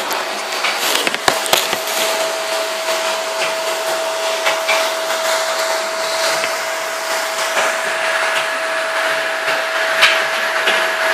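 Steady whir of an electric motor running, with a constant mid-pitched hum. A few knocks from handling sound in the first second and a half.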